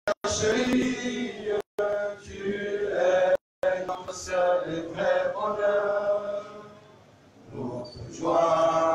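Men singing a chant together in held, stepped notes, a man's voice carrying it through a microphone. The sound cuts out completely for a moment three times in the first few seconds.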